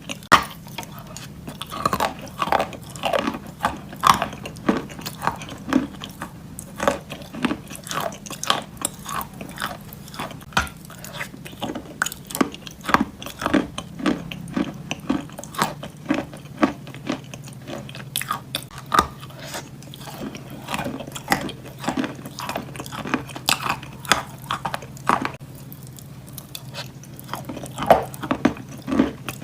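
Close-up biting and chewing of wet chalk with clay paste: repeated sharp crunches, several a second, with softer wet chewing between them. A steady low hum runs underneath.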